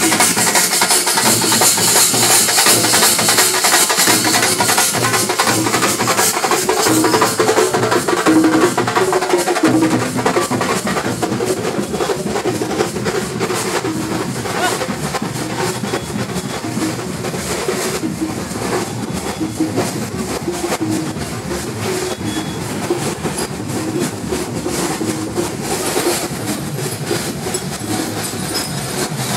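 A troupe of festival drummers playing a fast, dense rhythm on stick-beaten drums, with crowd voices mixed in. The drumming is loudest in the first ten seconds, then somewhat quieter.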